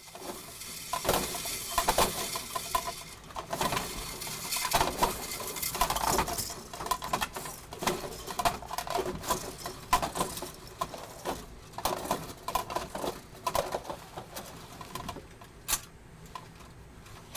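Plastic 3D printer filament spools clattering, knocking and clicking as they are handled and slid onto a spool rack rod. The rattling is busiest in the first half and thins to a few sharp clicks near the end.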